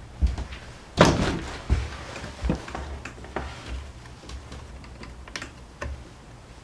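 Irregular knocks and clicks from parts and tools being handled while a Honda UMK422 string trimmer is reassembled. The loudest is a single knock about a second in, followed by lighter clicks.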